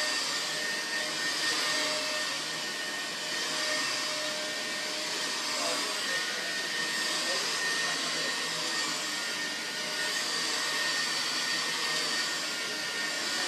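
Vacuum running steadily over carpet, lifting used dry-cleaning sponges out of the pile, with a constant whine over the rush of air.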